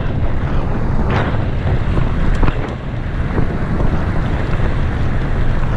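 Wind buffeting the microphone of an action camera on an electric fat bike coasting along a dirt trail. It makes a loud, steady low rumble, with a couple of brief knocks.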